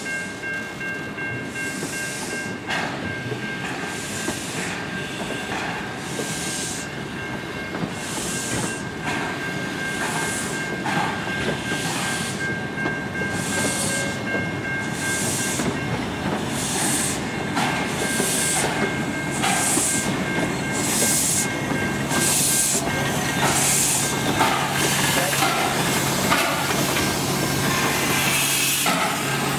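Slow-moving steam train: carriage wheels rumbling on the rails, with the W class steam locomotive's exhaust puffing about once a second, growing louder as the locomotive comes close.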